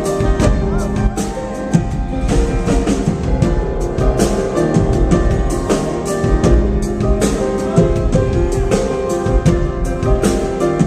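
Live band music: a drum kit keeps a steady, driving beat under sustained keyboard and bass tones.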